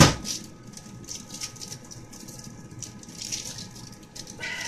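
A spatula stirring and scraping melted green chocolate in a glass bowl, with a sharp knock against the bowl at the start and scattered small clicks and scrapes after it.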